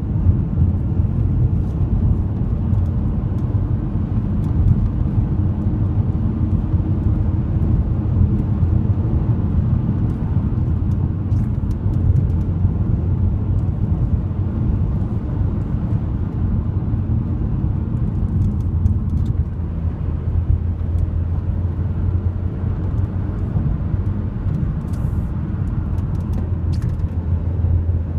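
A car's engine and tyres make a steady low rumble, heard from inside the cabin while it drives along at speed.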